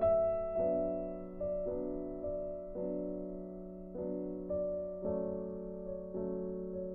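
Background music: a gentle piano piece, its notes and chords struck every half second or so and left to ring out.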